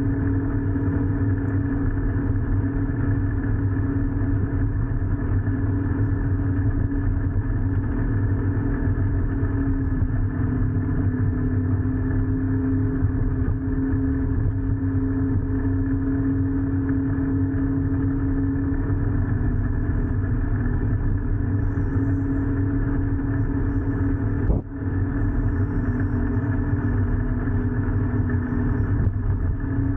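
Motor vehicle engine running steadily under way, its low hum wavering a little in pitch, with a brief drop in level about 25 seconds in.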